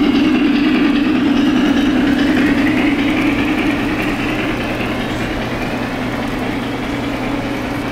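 O gauge model trains running on three-rail track: a steady rumbling hum of electric motors and metal wheels on the rails, which grows a little fainter about halfway through.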